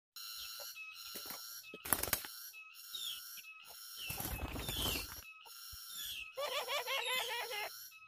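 Birds calling: high whistled chirps and short falling notes repeat throughout, with a louder wavering, warbling call from about six and a half seconds to nearly eight. A short sharp noise sounds about two seconds in.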